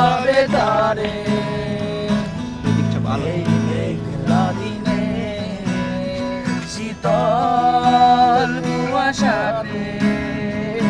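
Acoustic guitar being strummed while a voice sings along, holding long wavering notes at the start and again about seven seconds in.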